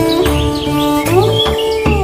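Background instrumental music: a held melody line that slides up and down between notes over a pulsing bass beat, with short bird chirps over it.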